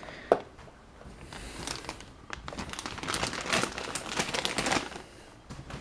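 Clear plastic overwrap crinkling as wrapped chair parts are handled and shifted, after a single sharp click just after the start.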